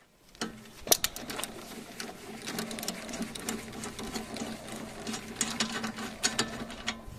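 A small power tool with a 16 mm socket runs steadily, spinning a stabilizer link nut loose, its motor whirring with rapid, uneven clicking. It starts about half a second in and stops just before the end.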